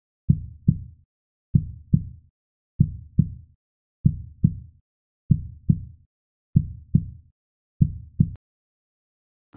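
Slow heartbeat sound effect: low paired lub-dub thumps repeating about every one and a quarter seconds, seven times, then stopping.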